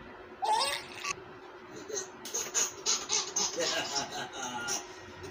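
A baby laughing hard in rapid, repeated bursts of giggles from about two seconds in. A brief voice with a rising pitch comes about half a second in.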